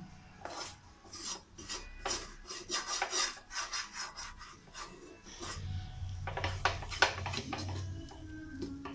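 An orange plastic utensil scraping and stirring a thick coconut and condensed-milk mixture in a steel pan, in repeated rasping strokes. A low hum joins about halfway through.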